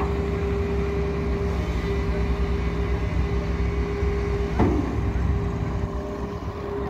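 Long-reach hydraulic excavator running steadily, a low engine rumble with a steady whine over it, as it digs in the canal. A single knock sounds about four and a half seconds in.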